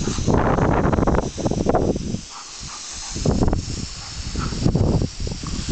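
Garden hose spray hissing steadily, broken by several louder splashing bursts as a dog bites and snaps at the water stream, the longest in the first two seconds.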